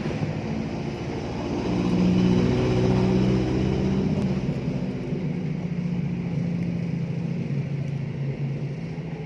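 A motor vehicle's engine running, swelling about two seconds in and then slowly fading away.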